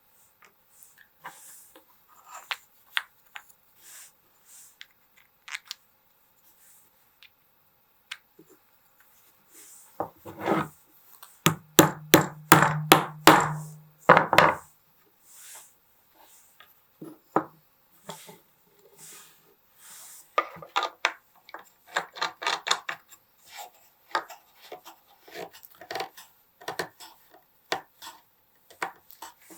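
Workshop assembly sounds: scattered clicks and knocks of parts and tools being handled and fitted. About ten seconds in comes a louder run of rapid knocks lasting some four seconds, with a short steady low hum under part of it.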